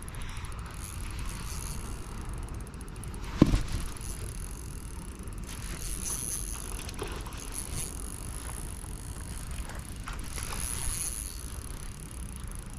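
Wind rumbling steadily on the microphone, with one sharp knock about three and a half seconds in.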